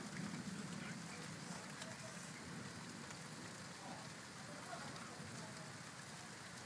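Steady rain hissing down during a thunderstorm. A low rumble of thunder fades out over the first second or two.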